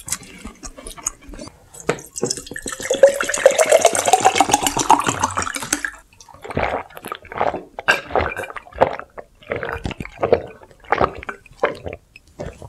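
A drink poured into a glass, its pitch rising as the glass fills, then a steady run of gulps, about two a second, as it is swallowed.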